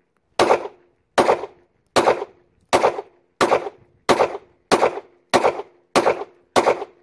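A string of ten pistol shots from a Polymer80-framed Glock 26 build in 9mm, fired at a steady pace of about one every 0.7 seconds. Each shot is a sharp crack with a short fading tail.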